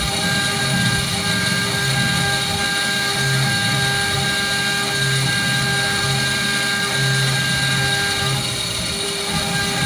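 CNC milling spindle running at high speed with a small cutter engraving a titanium plate: a steady whine of several fixed tones over a hiss, with a lower hum that starts and stops every second or so as the machine's axes move.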